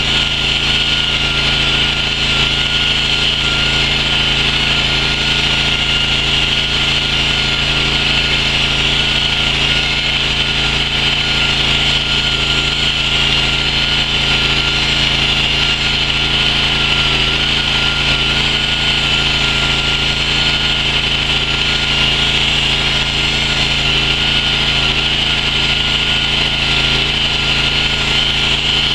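Stone-cutting chainsaw running steadily at speed while its bar cuts slowly into a stone block, with no revving up or down.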